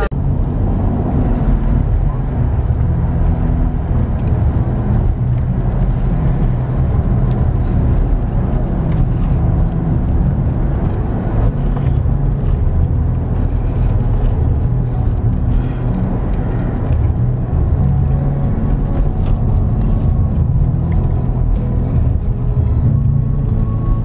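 Steady low rumble of a car's engine and tyres on the road, heard from inside the moving car's cabin.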